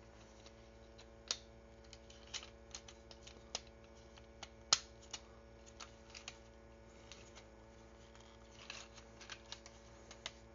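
Small plastic toy parts clicking and tapping as they are handled and tabbed into notches, in scattered irregular clicks, one noticeably louder near the middle.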